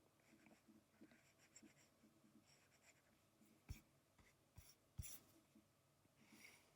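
Faint scratching of a brush pen inking lines on a drawing, with two light taps about three and a half and five seconds in.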